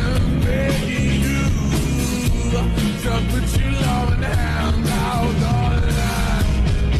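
Background song: a sung vocal over a band with heavy bass and drums.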